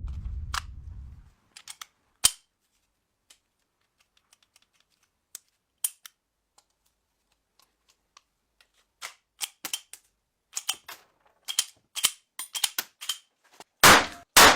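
Sharp metallic clicks from an antique pistol's action being worked. Scattered single clicks at first, then a quick run of them, and two loud snaps near the end.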